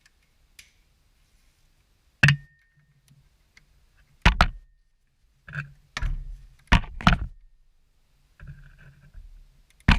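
Several sharp metallic knocks and clanks of hand tools on metal, spaced a second or two apart, the first leaving a short high ring.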